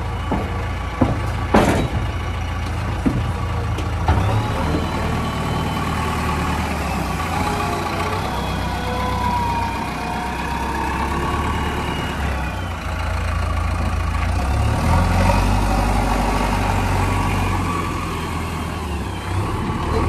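JCB 3DX backhoe loader's diesel engine working, its load and pitch shifting, with a few sharp knocks in the first four seconds, the loudest about a second and a half in.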